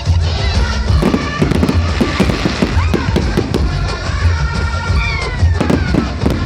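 Fireworks display: shells bursting and crackling in quick succession, with music playing over them.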